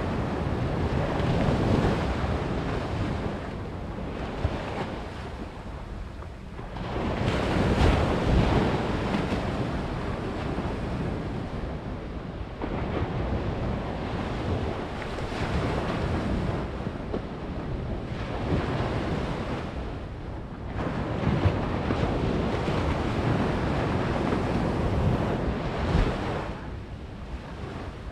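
Small surf breaking and washing up a sandy beach, the rush rising and falling every few seconds, with wind buffeting the microphone.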